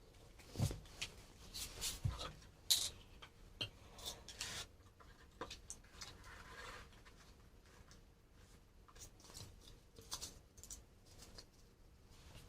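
Cardboard being worked by hand: irregular scrapes, rustles and small clicks, busiest in the first few seconds and then sparser.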